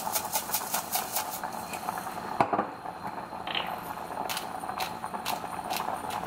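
A pot of seaweed soup boiling hard, with salt shaken in from a container as a quick rhythmic run of ticks, a sharp click about two and a half seconds in, then a pepper grinder twisted over the pot in a few spaced grinding turns.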